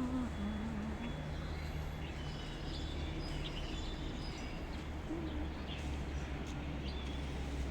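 Many small birds chirping in a tree: short, high chirps scattered throughout over a steady low background rumble, with a person humming a tune for about the first second.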